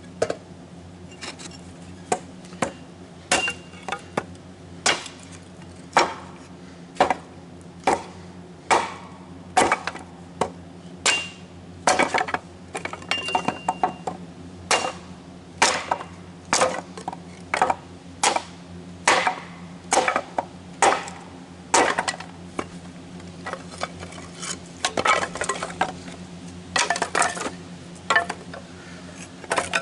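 Hatchet splitting wood into kindling: sharp chopping strikes about once a second, some in quick pairs. A steady low hum runs underneath.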